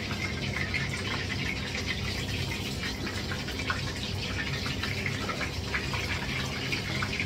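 Food sizzling and crackling in hot oil in a frying pan, a steady hiss with small pops throughout.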